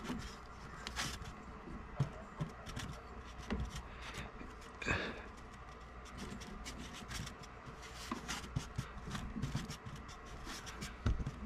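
Ridgid tubing cutter being turned around a copper water pipe, its cutting wheel scraping and clicking quietly in short, irregular strokes as it scores into the pipe.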